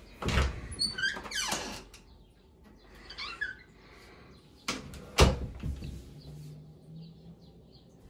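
An interior wooden door being moved and handled: a loud rustle with brief squeaks in the first two seconds, then two sharp knocks about five seconds in, the second the loudest.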